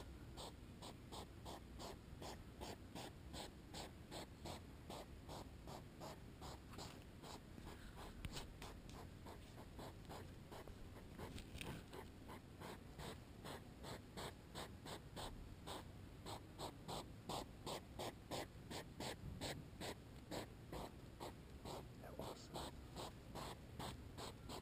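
Hedgehogs huffing and snorting in courtship, a steady run of short puffs at about two a second.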